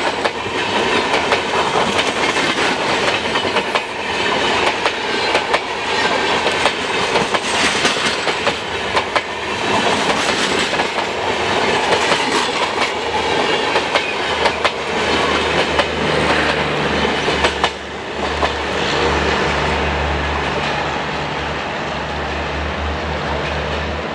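Broad-gauge express train's passenger coaches rolling past at speed, wheels clattering over the rail joints. The clatter stops about three-quarters of the way in, leaving a steady low rumble that fades as the train draws away.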